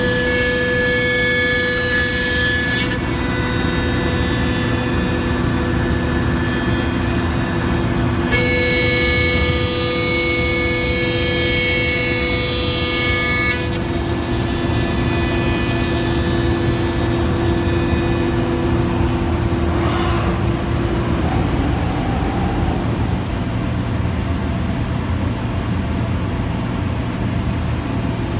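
1999 Thermwood Model 53 CNC router running under power: a steady low machine drone with several high whining tones on top, the whine changing abruptly a few times.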